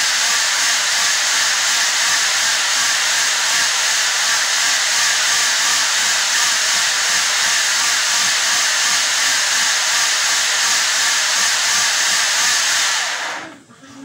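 Trek mountain bike pedalled hard on a stationary trainer stand, its rear tyre and drivetrain spinning with a loud, steady whirring hiss. The sound drops away quickly near the end as the pedalling stops.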